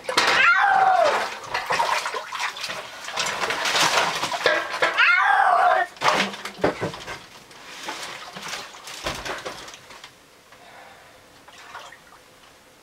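Domestic cat yowling in distress while being picked up and carried, two long wailing yowls over water sloshing around wading legs in a flooded basement. The yowling stops about six seconds in, leaving quieter splashing and dripping.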